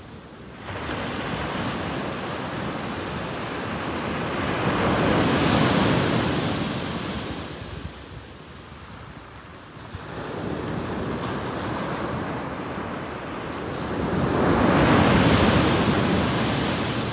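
Sea waves breaking on a pebble beach. Two big waves swell to a crash about ten seconds apart, around 5 and 15 seconds in, each fading as the water runs back.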